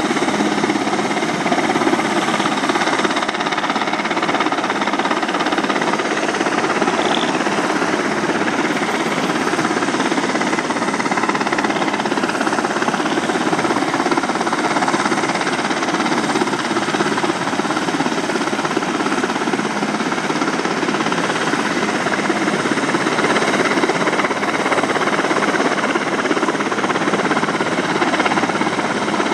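Sikorsky helicopter hovering: a steady, rapid rotor chop over the engine noise.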